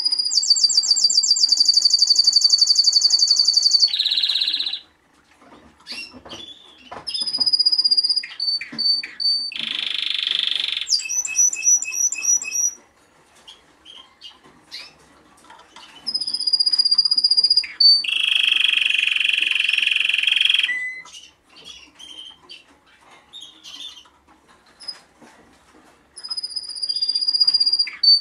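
Male Timbrado Español canary singing in separate phrases with pauses between them. It opens with a long, rapid, high trill and moves on to rougher, buzzier rolls and shorter trills.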